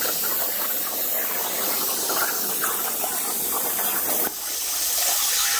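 CNC plasma torch cutting 3/16-inch steel plate: a steady, loud hiss, with a brief dip in level about four seconds in.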